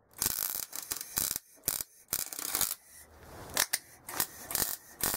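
MIG welder stitch-welding a sheet-steel sill panel: the arc crackles in short bursts of a second or less, stopping and starting several times.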